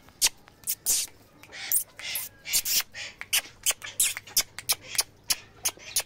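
Dog eating from a clay bowl: a steady run of quick, irregular mouth clicks, about three or four a second.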